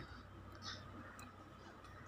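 Very quiet eating sounds from a child taking a handful of rice by hand and chewing: a few faint soft clicks and one short rustle about two-thirds of a second in, over faint room hiss.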